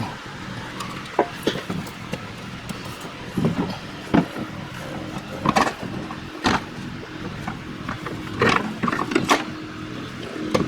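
Several sharp knocks and clicks of hand tools and parts being worked in a car's engine bay while the alternator is removed. They come irregularly, about a second apart, over a steady low hum.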